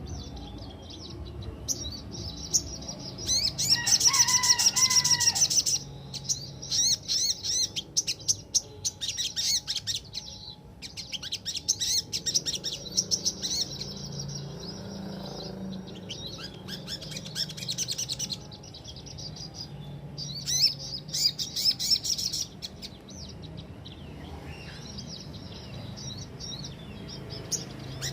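Sogok ontong (little spiderhunter) singing in fast, high, rolling chirp bursts of several seconds each, with brief pauses between them. A short lower whistled phrase cuts in about four seconds in.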